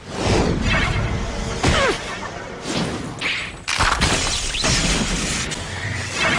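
Animated battle sound effects: a run of crashes, thuds and shattering impacts, some with swooshing sweeps falling in pitch.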